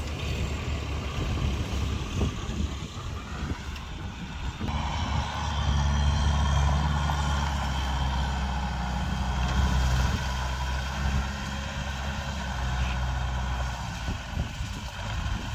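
Kubota farm tractor's diesel engine running steadily under load while tilling the field. It grows louder about five seconds in as the tractor comes nearer, then eases off.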